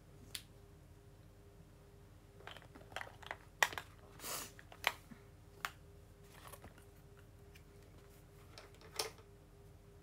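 A scattered run of small clicks and taps from objects being handled, starting a couple of seconds in and ending about a second before the close, with one short rustle in the middle. A faint steady hum lies under it.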